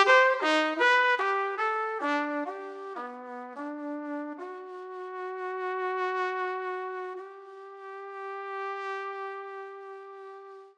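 Title music: a single melodic line of short, loud notes mostly stepping down in pitch, then one long held note that fades away.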